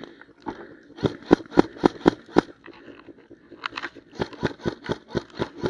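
Quick footsteps crunching through dry leaves and twigs in undergrowth, about four a second, with a pause of about a second in the middle.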